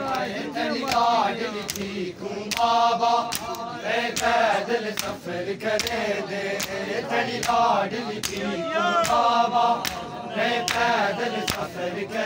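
Men chanting a noha together, with sharp slaps of hands striking bare chests (matam) keeping a beat about once or twice a second.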